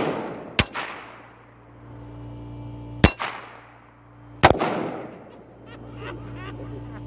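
Plastic soda bottles pumped with air to about 100 psi bursting: three sharp, loud bangs, about half a second in, about three seconds in and about four and a half seconds in, each trailing off in an echo.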